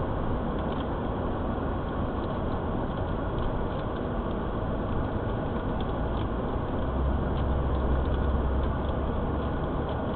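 Car on the move: a steady low engine and road rumble, swelling slightly about seven seconds in.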